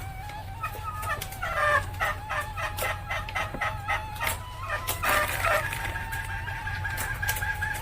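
Female junglefowl cackling ('ngekek'): bursts of quick repeated clucking notes, over a steady low hum.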